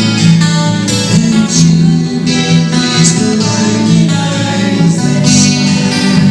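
Instrumental music with held low notes under a moving melody.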